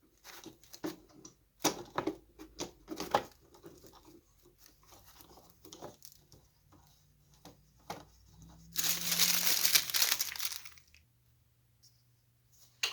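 Wax paper crinkling and rustling as it is handled and fitted around a joint, with scattered light clicks, then a sheet being torn for about two seconds near nine seconds in.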